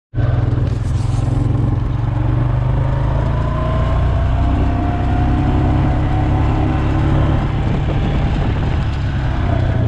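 A motor vehicle engine running loud and steady at an even speed, with a faint whine gliding slowly in pitch above it. It cuts in and out abruptly.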